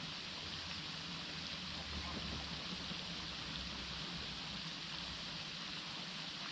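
Steady forest ambience: an even hiss with a faint low rumble underneath and no distinct calls or events.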